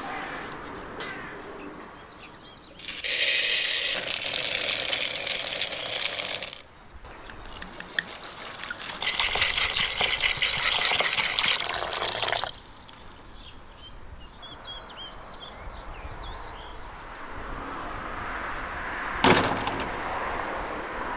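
Water poured in a steady stream into a wooden bowl of dried chickpeas to soak them, in two pours of about three and a half seconds each. A few faint bird chirps and a single knock follow near the end.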